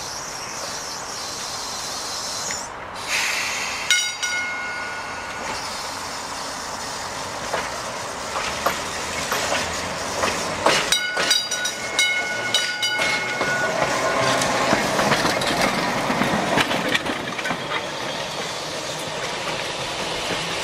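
Vintage electric streetcar running toward and past close by: wheels clattering over the rail joints with a light squeal. Its warning gong rings once about four seconds in and again several times in quick succession around the middle.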